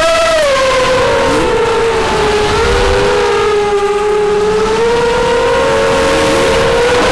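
Brushless motors of a ZMR 250 racing quadcopter (Cobra 2206 2100KV motors on 6x4 propellers) whining in flight, heard from the aircraft's own camera with wind rush on the microphone. The pitch dips over the first two seconds as the throttle eases, then holds fairly steady, with the separate motor tones drifting apart and together.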